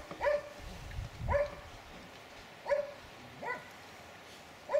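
A dog barking: about five short barks, spread unevenly.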